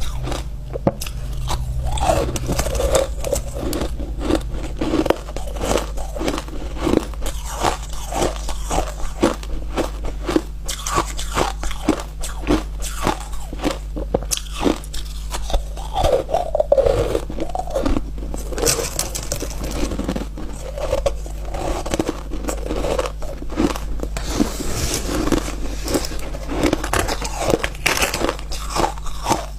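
Close-miked crunching as a person bites into and chews frozen ice, a dense, irregular run of sharp crunches.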